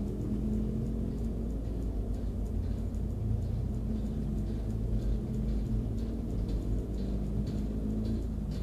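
Car engine idling while stopped at a red light, a steady low hum heard from inside the cabin, with faint light ticks in the second half.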